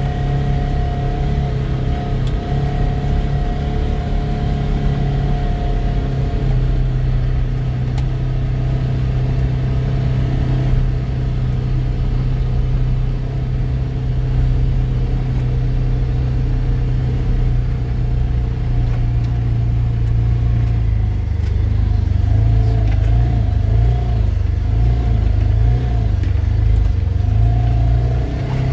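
Engine of a small off-road vehicle running steadily as it drives over a grass trail, its pitch wavering a little in the last several seconds.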